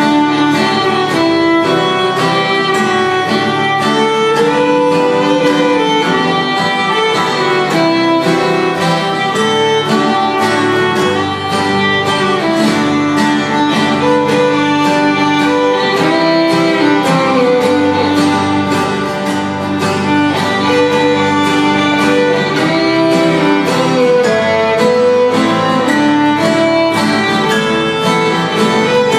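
A fiddle playing a lively tune over three acoustic guitars strumming a steady rhythm accompaniment, in contest fiddle style.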